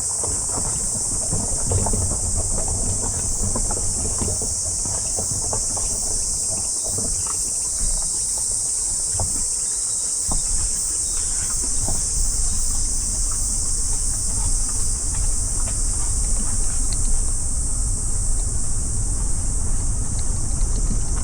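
Car driving on a road, with steady low road and engine rumble. Over it runs a loud, unbroken high-pitched chorus of insects.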